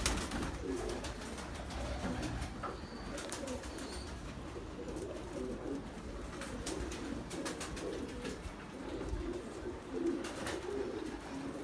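Domestic pigeons cooing, a continuous low murmur of overlapping wavering coos, with a few light clicks.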